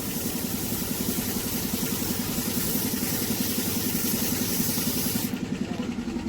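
Spray-paint gun hissing steadily while paint is sprayed onto the vehicle body, cutting off suddenly about five seconds in. Under it a motor runs steadily with a low throb.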